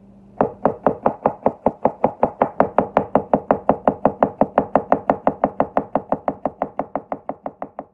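Chef's knife chopping a carrot into rounds on a cutting board: a fast, even run of knife knocks on the board, about five a second, getting slightly fainter near the end.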